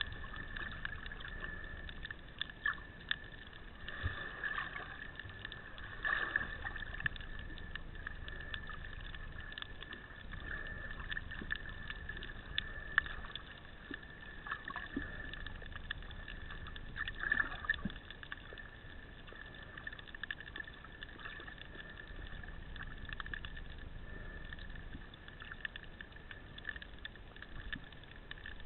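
Underwater sound picked up by a camera in a waterproof housing: a steady muffled water rush with a faint, steady high whine. Scattered clicks and small knocks come through it.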